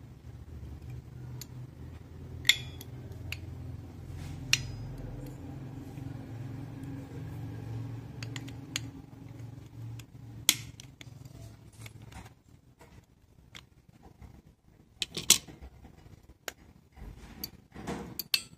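Small metal clicks and clinks as brake shoes, their return spring and a pair of pliers are handled, with a few sharp ticks standing out. A low background hum runs under them and stops about two-thirds of the way through.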